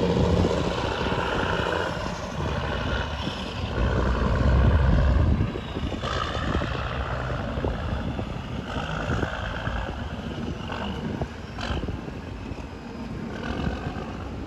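Tugboat engine running, a steady low drone whose level drops about five seconds in.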